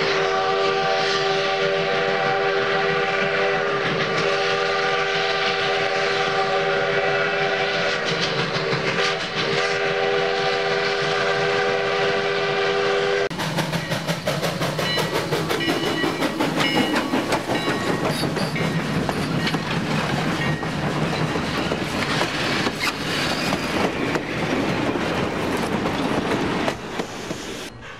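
Sound-equipped HO scale model steam locomotive: a long multi-tone steam whistle held for about thirteen seconds, wavering briefly twice, then cut off. Rapid steam chuffing and track clatter take over as the engine passes, fading near the end.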